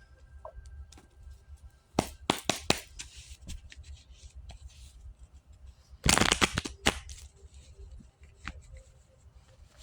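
Tarot cards being shuffled in two short bursts of rapid riffling clicks, about two seconds in and again about six seconds in, over faint background music.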